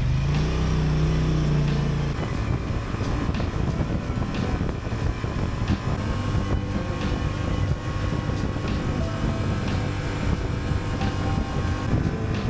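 2023 Honda Transalp's parallel-twin engine accelerating hard from a standstill, its pitch rising and then holding for about two seconds. After that, steady engine running and wind rush take over as the bike cruises at road speed.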